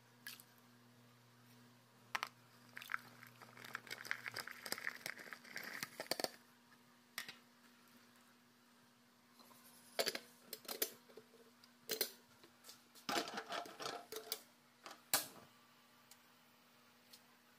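Chopped young jackfruit pieces handled by hand and dropped into a metal cooking pot: faint rustling with scattered light knocks and clicks in irregular clusters over a low steady hum.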